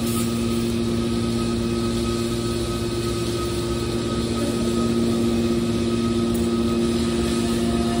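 Hydraulic power unit of a metal scrap baler running steadily: an even machine hum with a few fixed pitches.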